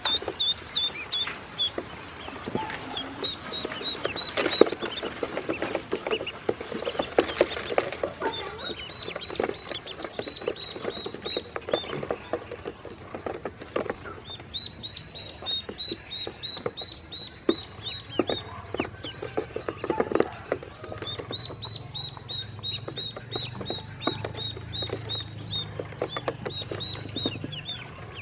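Ducklings peeping in runs of short high peeps, about four a second. Quick taps of their bills pecking feed off a hard plastic surface are mixed in, thickest in two clusters.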